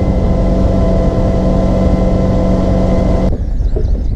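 Chris-Craft cuddy cabin's MerCruiser engine running at steady speed with the boat underway, a steady drone over a rush of wind and water noise. It cuts off suddenly about three seconds in, giving way to quieter outdoor sound.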